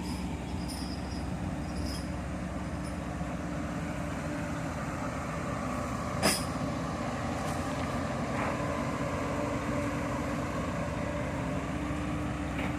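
Heavy diesel engine running steadily at a constant speed, with one sharp click about six seconds in.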